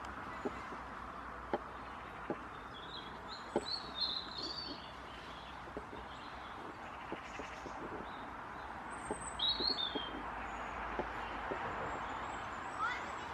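Steady hiss of road traffic, with small birds chirping in short bursts a few seconds in and again around ten seconds. Soft footsteps tick on a dirt path.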